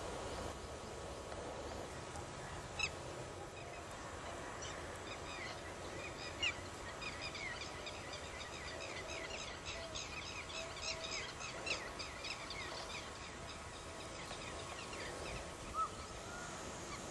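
Sarus cranes calling at a distance: a rapid series of short trumpeting notes, densest between about four and twelve seconds in, with a few single notes before and after, over a steady outdoor hiss.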